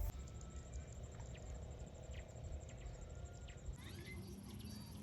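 Faint outdoor ambience with scattered small chirps and clicks over a low rumble; the background changes abruptly about three-quarters of the way through, followed by a few short rising chirps.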